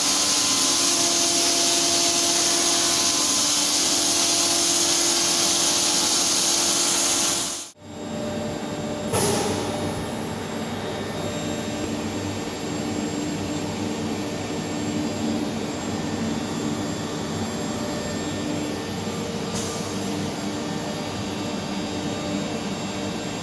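Automated beam-welding gantry at work: a loud steady hiss over a constant hum. After a cut about eight seconds in comes a quieter steady machine drone with hum tones, with a single click about a second later.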